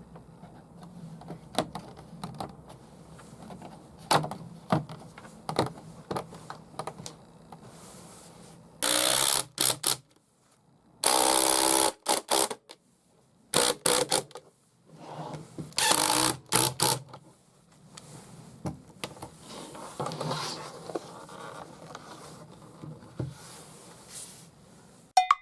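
Clicks and taps of small parts being handled, with four loud bursts of a small motor, each about a second long and cut off abruptly.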